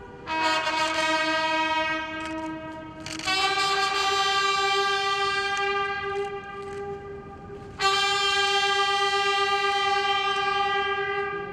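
Ceremonial brass fanfare of long held trumpet notes: three sustained notes with sharp starts, a lower one followed by two higher ones, each held for a few seconds, greeting the arrival of a dignitary.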